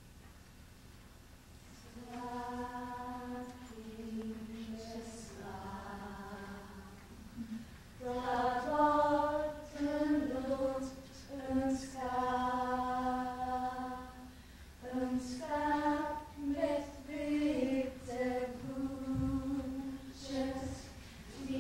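Unaccompanied vocal music in slow, long held notes, starting about two seconds in and louder from about eight seconds.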